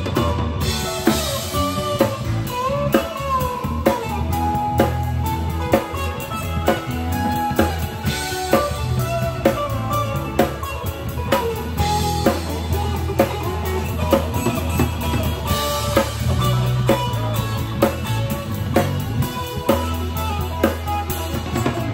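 Live rock band playing: a drum kit keeps a steady beat with cymbals, over bass and electric guitars.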